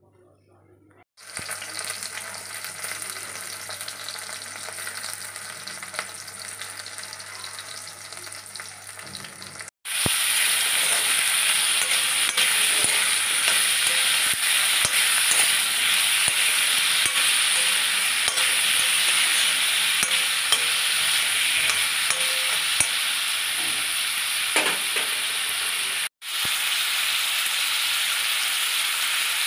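Cubed potatoes and kohlrabi sizzling in hot oil in a metal kadhai, with a spatula stirring and scraping through them. The sizzle starts about a second in, cuts off abruptly around ten seconds and comes back louder, then drops out briefly once more near the end.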